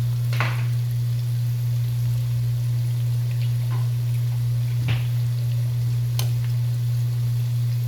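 Funnel cake batter pieces frying in hot oil: a faint sizzle with a few scattered sharp pops, over a loud steady low hum.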